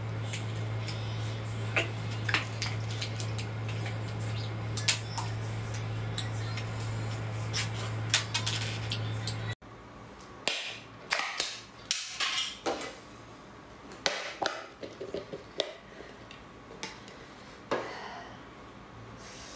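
Small sea snail shells clicking and clattering as the heaped tray is handled, over a steady low hum. About halfway through, the hum stops abruptly and a series of sharper clicks and knocks follows as the metal lid of a glass jar is worked open and the jar is handled.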